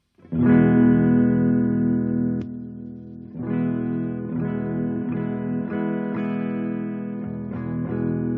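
Guitar played through a transistor test circuit: a chord strummed and left to ring, then struck again about three seconds later and followed by a run of quicker strums. It is the test of a newly swapped-in transistor, judged by how loud it sounds.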